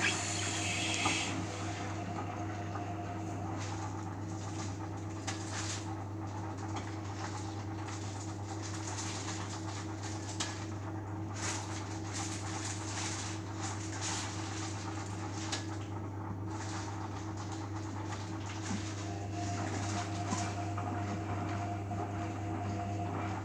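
Beko Eco Care WMA 1510 washing machine running an Eco 60 °C wash: a steady hum with irregular short swishes and knocks as the load tumbles in the drum.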